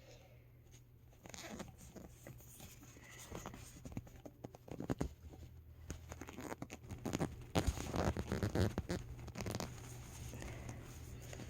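Hands handling a small plastic fashion doll and its accessories: rustling, scraping and many small clicks, busiest about seven to nine seconds in.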